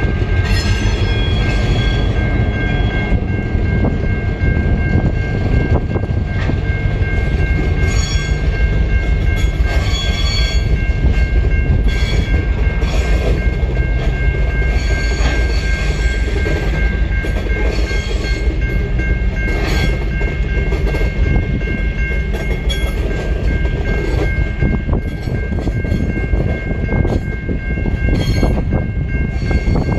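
Coal hopper wagons of a freight train rolling past on a curve: a steady heavy rumble of wheels on rail with scattered clicks from the rail joints, and a steady high-pitched wheel squeal over it.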